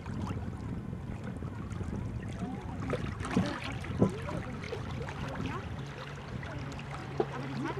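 Small waves lapping and splashing over a steady low rumble, with a few sharp knocks, the loudest about four seconds in.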